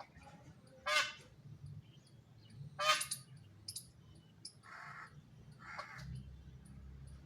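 Peahen calling: two short, loud calls about a second and three seconds in, followed by two softer, rougher calls.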